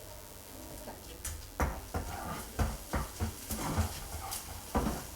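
Metal spatula knocking and scraping against a kadai while fish paste is stir-fried in oil, a run of irregular clatters starting about a second and a half in.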